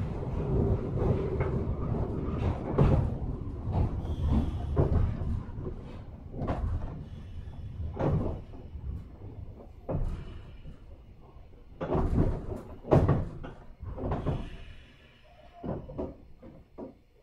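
JR 103 series 1500 electric train standing at a station: a string of knocks and clunks from its sliding doors and car body over a low rumble that dies away toward the end.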